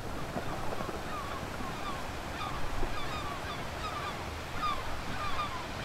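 Recorded seaside sound effects: a steady wash of surf with short, high, falling bird cries repeating about twice a second.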